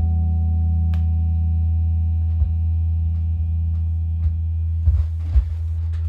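Steady low hum from an electric guitar amplifier, with a held chord ringing out and slowly fading. There are a few faint clicks, and scratchy strumming starts near the end.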